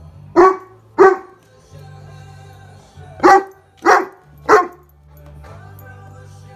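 Newfoundland dog barking five times, loud and short: two barks about half a second apart, then after a pause three in quick succession about three seconds in. The barks ring out over much quieter pop music.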